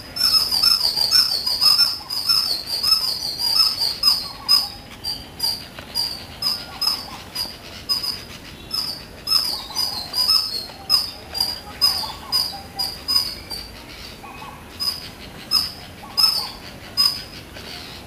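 Indian palm squirrel giving its repeated sharp, high-pitched chirping call. The calls come in a quick run at first, then settle to about two a second, and stop shortly before the end.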